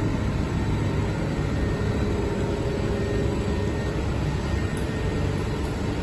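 A 10 kW air-source heat pump's outdoor unit running steadily in defrost mode with its fan stopped: the compressor's hum with a faint steady tone.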